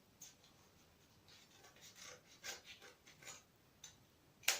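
Scissors snipping and paper rustling, faint and irregular, with a sharper click near the end.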